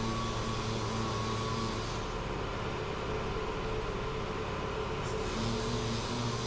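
DA (dual-action) sander running steadily while sanding a plastic car bumper: a constant motor hum with a higher tone above it. Between about two and five seconds in the high end drops away and the tone shifts, then it comes back.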